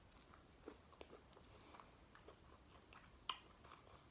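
Faint chewing: a person eating, with soft scattered mouth clicks and one sharper click about three seconds in.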